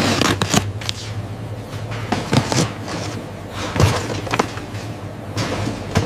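Irregular knocks, clunks and clatter over a steady low hum of running machinery.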